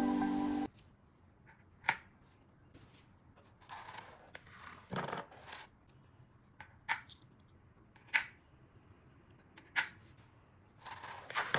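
A short music tail that cuts off under a second in, then metal coins dropped one at a time onto a cardboard coin bank's tongue, giving scattered light clinks and clicks as they land and knock against one another.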